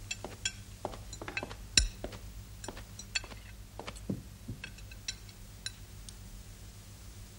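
Dinner-table clinking: cutlery and a serving fork tapping china plates and glasses in scattered light clicks, some with a short ring, and one duller knock about two seconds in.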